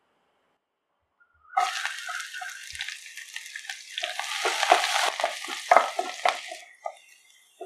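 Chopped garlic sizzling in hot oil with cumin seeds in a nonstick pan, starting suddenly about a second and a half in. A spatula stirs through it in quick strokes, about three a second, in the second half. The sizzle stops abruptly near the end.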